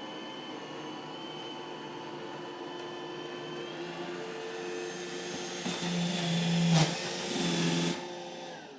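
iRobot Roomba j7 robot vacuum running with a steady motor whine and hum. It grows louder in the second half, with a sharp knock about seven seconds in, then drops away near the end.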